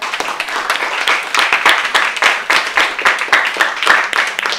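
Small audience applauding: steady clapping of many hands.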